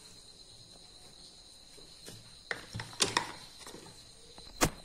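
A stainless steel rolling pin rolls dough on a floured wooden board. It gives a few soft knocks around the middle and one sharp knock near the end. A faint steady high-pitched tone runs underneath.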